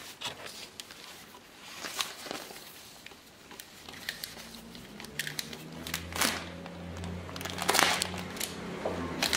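A clear plastic packaging bag crinkling and rustling as it is handled and opened, in irregular crackly bursts that grow louder and denser in the second half.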